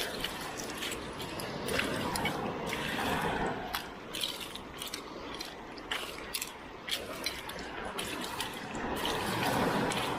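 Shallow Baltic sea water sloshing in slow swells around someone wading and working an amber-fishing net, with many small sharp clicks and ticks scattered throughout.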